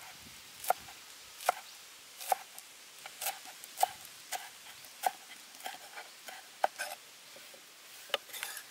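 Hammered steel cleaver chopping laksa leaves on a round wooden board: about a dozen sharp knocks of the blade on the wood, unevenly spaced, roughly one every half second to second.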